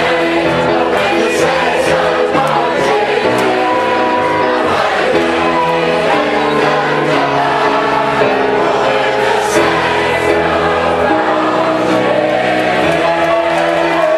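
A large crowd singing a gospel spiritual together in loud, sustained chords, with instrumental accompaniment.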